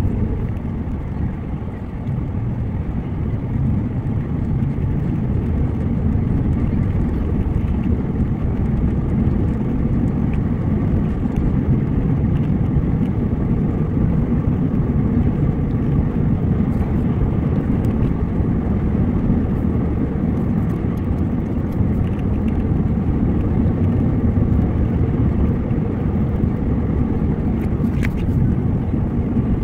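Steady low road and engine rumble heard inside a Subaru's cabin while driving on a snowy highway.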